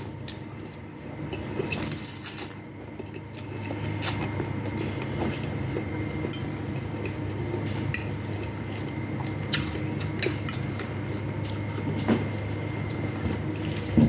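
Eating noodles: wet, squishy mouth and food sounds, with a spoon or other utensil clicking against a dish every few seconds, over a steady low hum.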